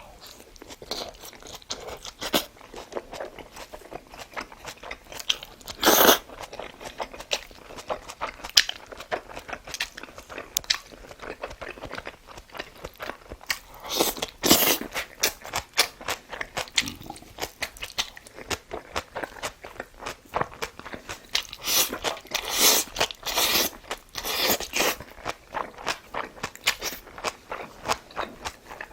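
A person chewing and crunching food with biting and mouth sounds throughout. Louder crunchy bites come about six seconds in, again around fourteen seconds, and in a cluster a little past twenty seconds.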